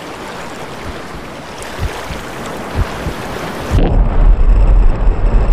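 Sound-effect mix of ocean waves rushing on a sandy beach, a steady loud surf hiss with a few low thumps. About four seconds in, a deep, loud low rumble takes over and the hiss loses its highest sounds.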